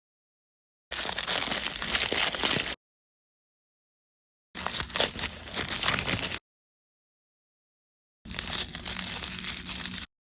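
Plastic blind-bag wrapping being crinkled and torn open by hand, in three separate bursts of about two seconds each with silence between.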